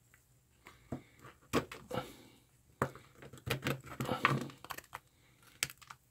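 Wire-stripper pliers crunching and snapping brittle epoxy off the end cap of an old oil-and-paper capacitor: a run of irregular sharp cracks and clicks as pieces break away.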